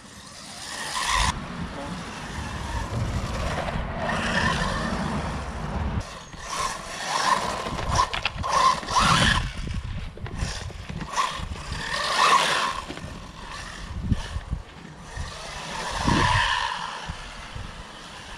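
Brushless electric motor and drivetrain of a 1/14-scale RC buggy whining as it speeds up and slows again and again around a grass track, swelling loudest several times as it passes near.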